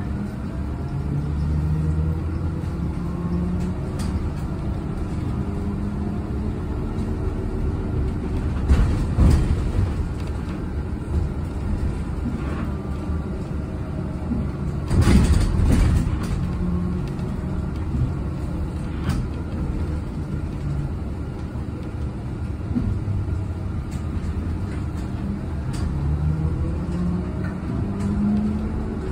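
Cabin ride noise inside a moving electric city bus: a steady low road rumble with a faint hum that comes and goes. Knocks and rattles sound over bumps, loudest about nine seconds in and again around fifteen seconds in.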